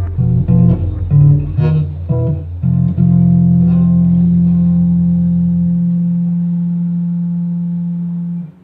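Guitar and bass playing a short run of plucked notes, then a final chord left to ring and fade, cut off abruptly near the end.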